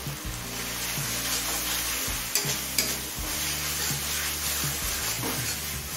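Spatula stirring and scraping a thick masala in a metal kadai while it sizzles in oil, ginger-garlic paste being fried into the spices. A couple of sharp taps about halfway through.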